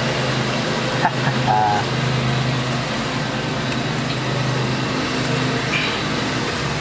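Steady background hum and hiss: an even rushing noise with a low drone under it. A brief voice-like sound comes about a second and a half in.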